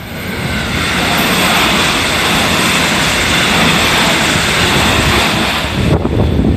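A JR Central electric multiple unit (313 or 311 series) passing at speed close by: a loud, steady rushing of wheels on rail that cuts off about six seconds in as the train clears, followed by gusts of its wake buffeting the microphone.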